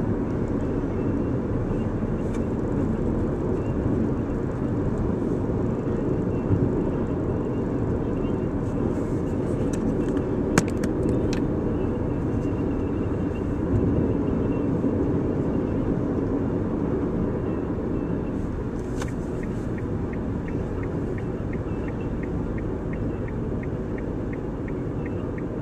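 Steady road and engine noise inside the cabin of a Toyota Land Cruiser cruising on a city road. A sharp click about ten seconds in, and a fast, regular ticking in the last few seconds.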